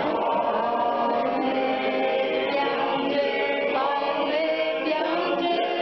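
A group of men and women singing together, unaccompanied, with many voices holding long notes in a steady song.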